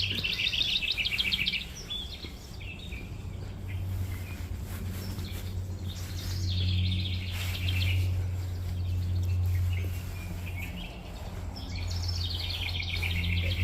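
A small songbird chirping in rapid high trills: three bursts of about a second and a half each, near the start, in the middle and near the end. A steady low hum runs underneath.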